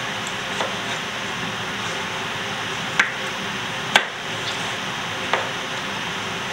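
Food sizzling steadily in a frying pan, with a few sharp clicks of a utensil against the pan, the loudest two about three and four seconds in.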